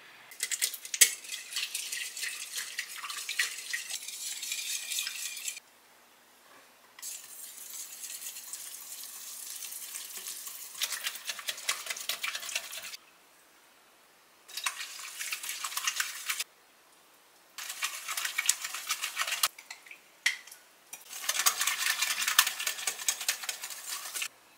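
Wire whisk beating batter in a glass mixing bowl, with fast rhythmic scraping and the wires clicking against the glass. It comes in about six spells with short pauses between them.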